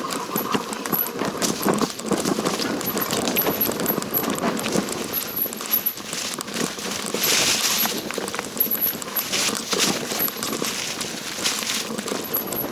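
Hiker's footsteps on a rocky mountain trail: irregular crunches and clicks of boots on stones and twigs.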